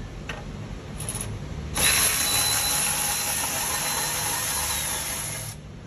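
Cordless power tool running steadily for nearly four seconds with a thin high whine, starting about two seconds in and cutting off sharply, after a couple of light clicks.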